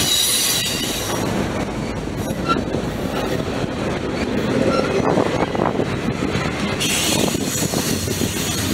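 Freight train of autorack and double-stack container cars rolling past, wheels rumbling and clattering on the rails, with high-pitched wheel squeal in the first second and again from about seven seconds in.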